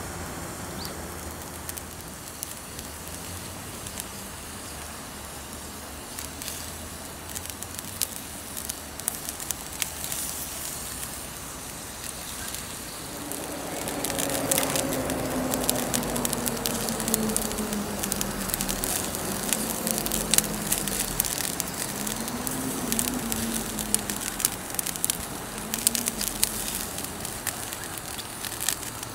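Wood campfire crackling and popping. About halfway through it grows louder and busier, with a faint wavering whistle that slowly drops in pitch.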